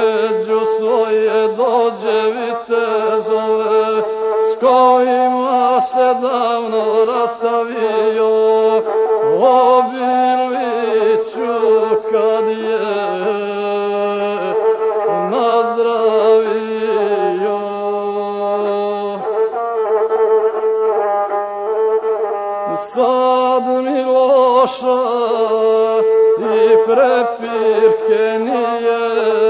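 Gusle, the single-stringed bowed Balkan folk fiddle, playing an instrumental passage between sung verses: a wavering melody with quick ornaments that moves to a new pitch every few seconds.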